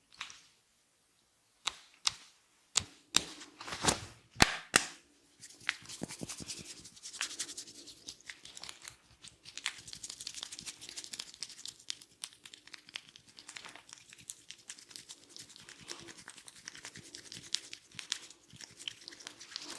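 A handful of sharp snaps in the first five seconds, then a dense, continuous crackling and rustling as hands rub and pull the scalp hair: hair cracking during a barber's head massage.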